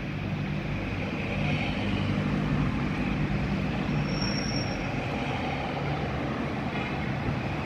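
Street traffic with a vehicle engine running close by: a steady low hum over road noise that swells a little about two seconds in.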